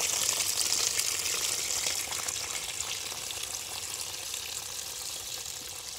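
Canal water pouring into a bamboo basket fish trap packed with small live fish: a steady splashing hiss with fine crackling clicks, growing gradually quieter.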